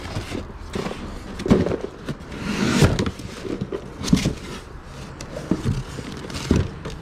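Objects being handled and moved about: scattered knocks and clatters, with a brief rustle about halfway through.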